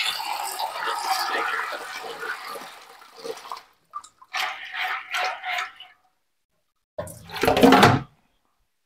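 Water running and sloshing as soaked dried beans are rinsed by hand, fading out after about three seconds, followed by a few short splashes. Near the end comes one short, louder burst of noise.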